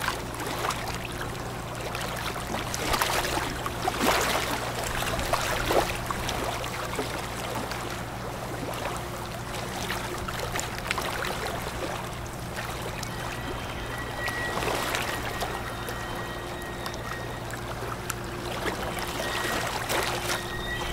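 A large ship's engines droning low and steady, with rushing water that swells a few times. A faint high whine comes in during the second half.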